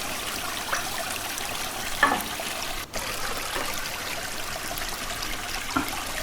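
A stream running steadily, with a brief louder sound about two seconds in.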